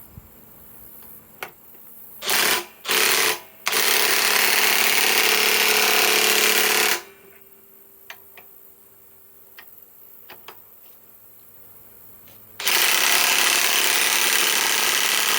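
RIDGID R8721 half-inch subcompact right-angle impact wrench hammering bolts tight on speed 1, its lowest setting: two short bursts, then a run of about three seconds, a few light clicks, and a second run of about three seconds near the end.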